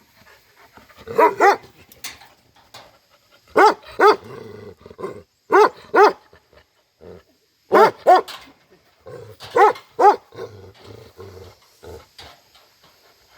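Bhote Kukur, a Himalayan livestock guardian dog, barking angrily in double barks, five bouts about every two seconds, with low growling in between. These are aggressive guarding barks, set off by what the dog sees outside.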